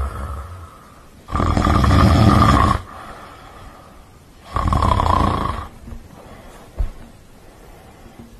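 Two long snores, each lasting over a second, about three seconds apart, with a brief low bump near the end.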